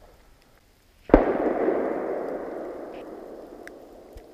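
A single hunting gunshot about a second in, its report echoing and rolling away through the forest for several seconds.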